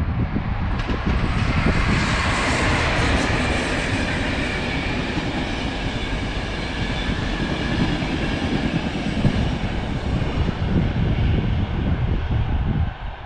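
Passenger train of coaches passing close at speed: steady rolling noise of wheels on rail, with a few sharp clicks early on, dropping away at the end as the last coach goes by.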